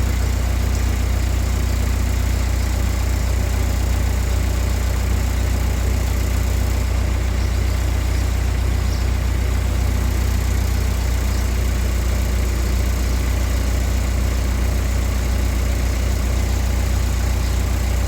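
A steady, unchanging low mechanical hum, like an engine or motor running at idle.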